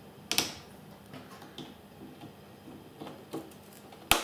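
Sharp plastic clicks of memory slot latches snapping shut as RAM modules are pressed into the motherboard of an HP ProLiant ML350 G5 server: two loud clicks, one about a third of a second in and one near the end, with a few fainter clicks and taps between.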